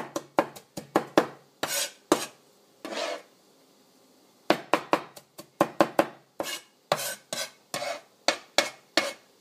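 Chinese cleaver chopping and mincing scallions, ginger and garlic on a plastic cutting board: quick knife strikes in two runs with a pause of about a second between them, and a couple of longer scrapes as the blade gathers the pile.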